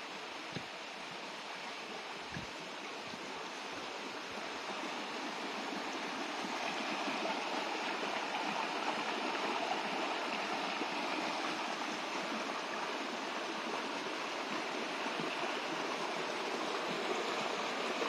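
Shallow forest creek running over a gravel bed, a steady rush of water that grows louder over the first several seconds, then holds. There are two soft low knocks near the start.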